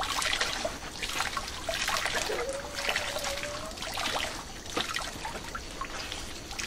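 Liquid trickling and dripping through a woven basket sieve into a metal basin as wet grated manioc pulp is squeezed and kneaded by hand, with irregular wet squelches from the mash.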